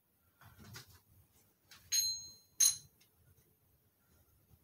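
Steel rocker arms clinking against each other as they are handled and set onto the pushrods of a Jeep 4.0 inline-six's cylinder head. There is soft handling noise near the start, then two ringing metallic clinks about two seconds in, half a second apart; the first rings on briefly.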